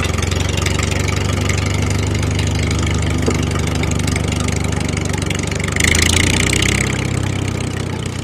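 Small engine of a home-made mini tractor running steadily at idle-like speed. About six seconds in, a brief, louder noisy stretch lasts around a second.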